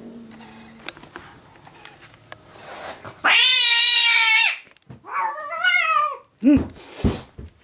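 Young kitten meowing loudly: one long, wavering cry about three seconds in, then a second meow that rises and falls in pitch.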